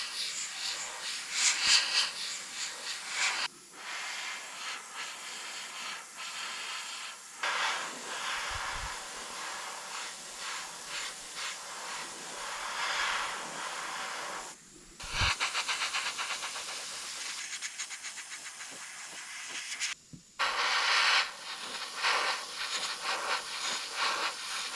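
Paint spraying onto the model: a steady hiss in four long bursts, each broken off briefly before the next.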